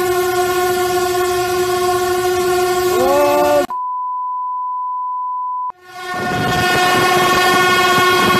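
Train horn sounding a long, steady multi-tone blast. About three and a half seconds in, a two-second 1 kHz censor bleep replaces it, and the horn then resumes over louder rumbling train noise.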